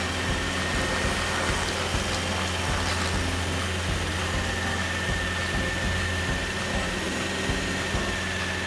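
Bandit SG-75 tracked stump grinder running under load as its cutter wheel sweeps through a rotten stump: a steady engine drone with a thin high whine held over it.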